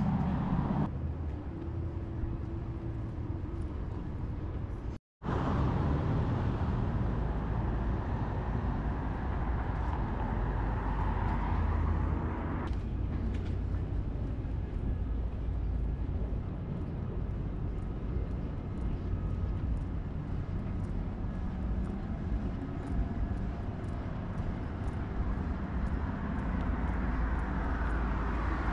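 City street traffic: a steady hum of cars with a few vehicles passing, swelling and fading. The sound cuts out completely for a moment about five seconds in.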